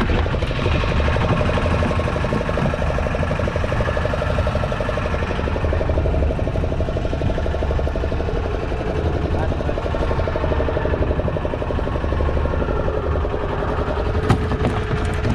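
Fishing boat's engine running steadily at a constant pace, a low rumble with an even, slightly pulsing hum.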